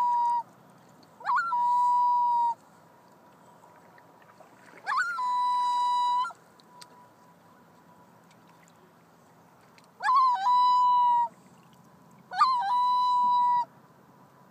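Common loon calling: four short calls, each a quick upward swoop that settles into a steady, even note held for about a second, spaced irregularly a few seconds apart.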